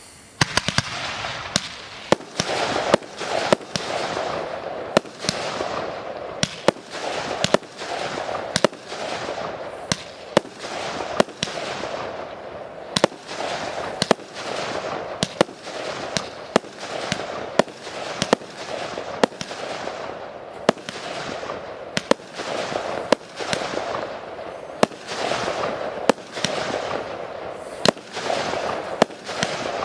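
Fireworks display: shells bursting in quick succession, with sharp bangs about once or twice a second over a continuous wash of noise. The barrage starts suddenly just after the beginning.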